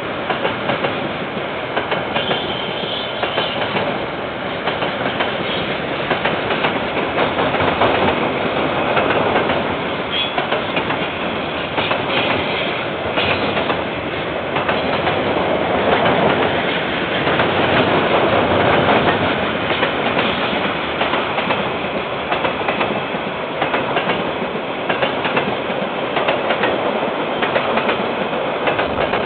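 KiwiRail container freight train's wagons rolling past, a continuous rumble and clatter of steel wheels on the rails, with a few brief high wheel squeals. Heard through a security camera's microphone, which cuts off the highest sounds.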